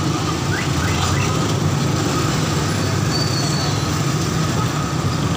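Steady low rumble of busy street traffic, with a few brief high squeaks about a second in.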